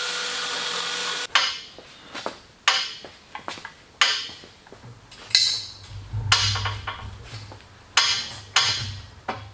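Portable band saw running as it cuts through steel tubing, stopping suddenly about a second in. Then a series of sharp metallic clanks with ringing, about one every second or so, from a manual tube bender being worked.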